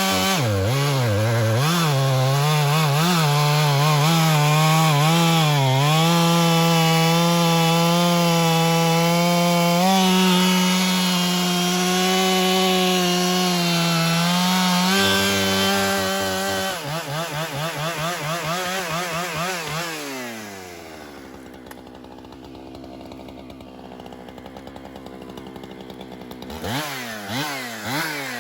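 Two-stroke chainsaw at full throttle cutting through very hard, dead gum, its revs dipping and recovering under load for the first several seconds. At about 17 s the revs fall away to a low idle, and near the end the saw is revved up again.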